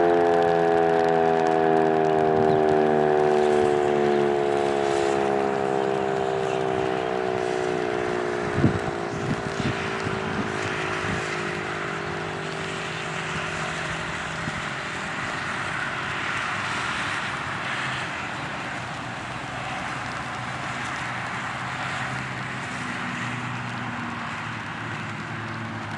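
Sentry 7V8-B outdoor warning siren winding down: its tone falls steadily in pitch and fades away over about fifteen seconds, with rain hissing throughout and a single knock about nine seconds in.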